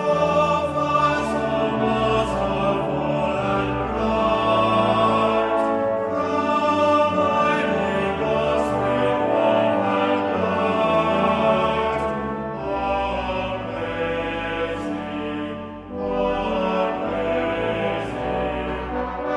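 Choir singing with orchestral accompaniment: sustained choral music.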